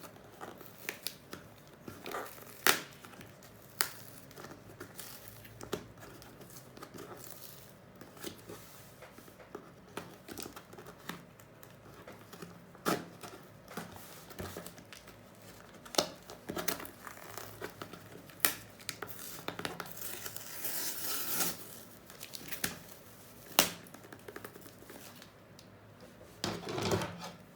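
Shipping packaging being torn and crumpled by hand, with irregular sharp crackles and snaps and a couple of longer rustling rips.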